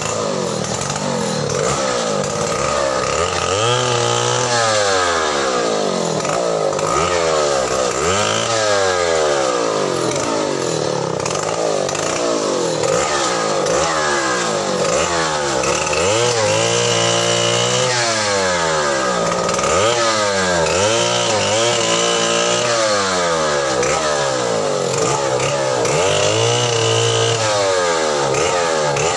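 Two-stroke petrol chainsaw running throughout, its engine revving up and dropping back over and over, roughly every two seconds, as it limbs a felled tree.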